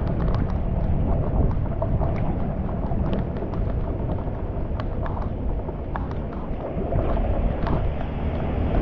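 Floodwater rushing into a cleared street drain: a steady low rush with scattered sharp ticks.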